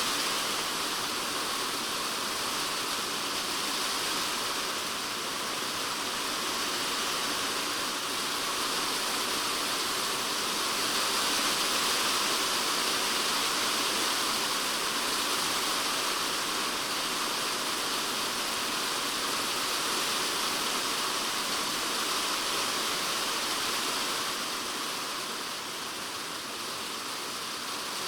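Typhoon rain falling steadily on a polycarbonate shed roof, heard from inside the shed as a dense, even hiss of drops. It eases slightly near the end.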